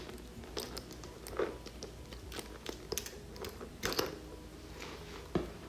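A handbag being handled: scattered light clicks and crinkles, with sharper clicks about four seconds in and again near the end.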